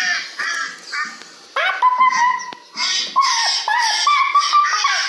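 Ducks quacking: a rapid run of short, nasal calls, one after another.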